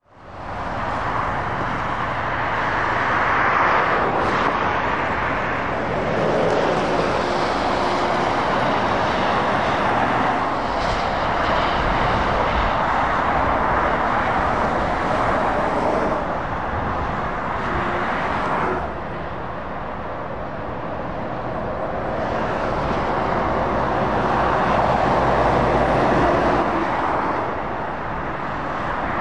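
Lorries and cars passing on a dual carriageway: tyre noise and diesel engines that swell and ease as each vehicle goes by, fading in over the first second.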